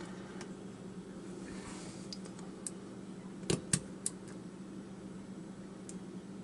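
Lock pick and tension wrench working the pins of an Arrow pin-tumbler lock: a few small sharp metallic clicks and taps, the loudest pair about three and a half seconds in, over a faint steady hum.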